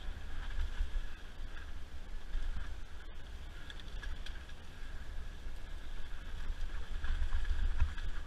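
Wind buffeting the microphone of a helmet-mounted camera on a downhill mountain bike, a rumble that swells and dips, mixed with the tyres running over a dirt trail, and a steady high buzz underneath.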